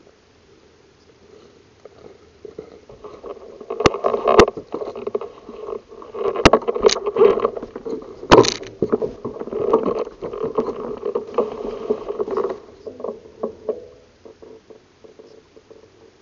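ATV driving through a muddy, water-filled rut and up a rough dirt trail: the engine working harder with mud and water sloshing, quieter at first and easing off near the end. Sharp knocks, the loudest about 4 and 8 seconds in, come from the machine jolting over ruts and rocks.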